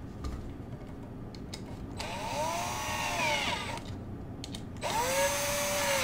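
Cordless drill-driver running in two short bursts, about two seconds in and again near the end, its motor pitch rising and then falling each time. It is driving the brass terminal screw on the side of a wall outlet down onto the hot wire. A few light handling clicks come before it.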